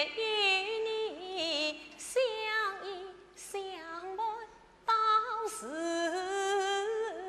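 Yue opera aria sung by a woman in a male role, one voice with vibrato and sliding pitch, largely alone, breaking off for a moment just before five seconds in.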